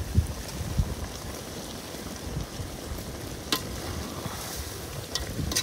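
Chicken masala gravy frying and sizzling in a large aluminium kadai as a metal ladle stirs it, with sharp clinks of the ladle against the pan about three and a half seconds in and twice near the end. A couple of low thumps sound in the first second.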